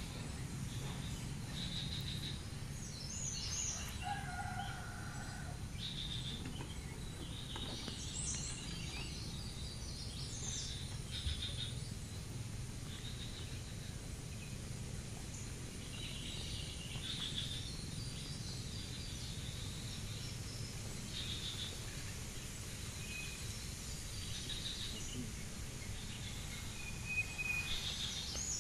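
Outdoor ambience of scattered bird chirps and calls over a steady low rumble, with a thin, steady high-pitched insect drone underneath.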